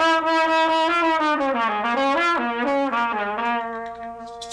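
Trumpet playing a short phrase of several notes that step up and down, then holding one long low note through the last second or so.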